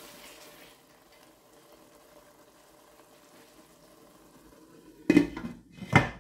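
A spoon stirring a thick pepper base in a stainless steel pot, then a faint steady sizzle as it fries. Near the end a glass pot lid clanks onto the steel pot twice, about a second apart, as it is set down to cover the pot.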